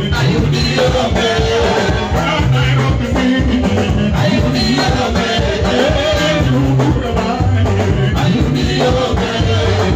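Loud live band music, a singing voice over a repeating bass line and a steady beat.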